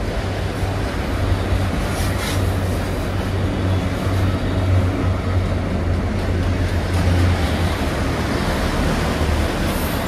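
Empty autorack freight cars rolling past, a steady rumble of steel wheels on the rails.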